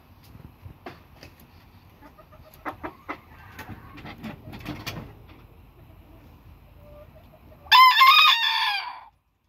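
A booted bantam rooster crows once near the end, a loud crow about a second long. Before it there are scattered soft clucks.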